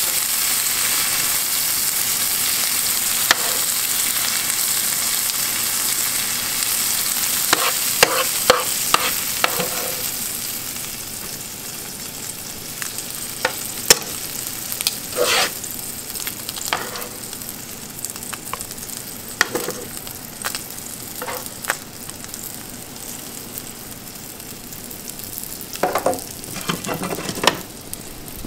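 Blackened pompano pieces and oil sizzling in a hot skillet. The sizzle fades over the first half. Metal tongs scrape and clink against the pan now and then, in small clusters.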